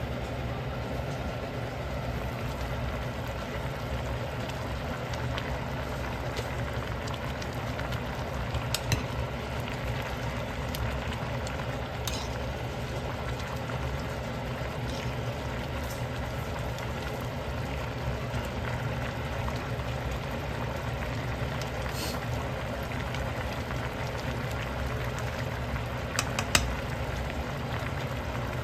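Pot of zucchini gochujang stew bubbling at a steady boil, over a low steady hum.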